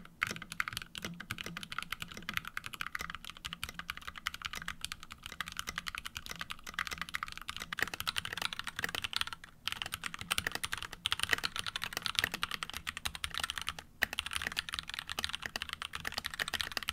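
Rapid typing on mechanical keyboards: a dense, steady stream of key clacks. Two different boards are typed on in turn, first standing on a bare desk, then the second one set on a desk pad, with short breaks in the typing about nine and a half and fourteen seconds in.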